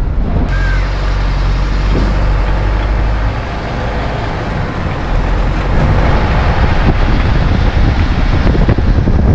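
Van driving along a road towing an empty boat trailer: steady engine, tyre and wind noise on the microphone.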